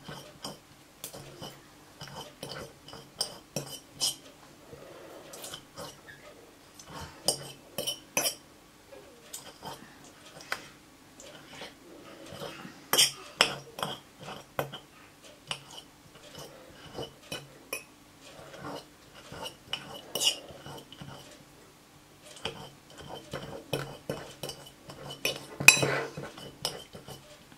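A metal fork clinking and scraping against a ceramic bowl in quick, irregular strokes while mashing peeled grapes, with a few sharper knocks along the way. A faint steady hum runs underneath.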